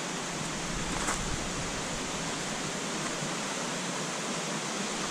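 Steady rushing hiss of flowing water, even and unbroken.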